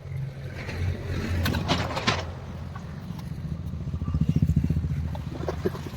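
An engine running with a low, rapidly pulsing rumble that grows louder about four seconds in and then eases off, with a few sharp knocks over it.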